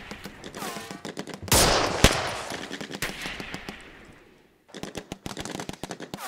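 Battle gunfire: a run of shots, then a loud blast about a second and a half in with a sharp crack just after, fading away over the next few seconds. Near the end comes a rapid string of shots like automatic fire.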